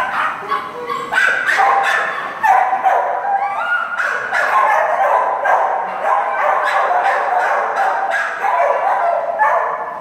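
Dogs in shelter kennels barking and yipping continuously, many short calls overlapping one another.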